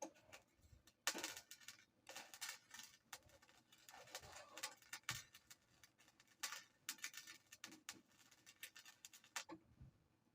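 Welding arc crackling in short, faint bursts of under a second each, about a dozen with brief gaps between them, as in tack or stitch welds on a gas tank.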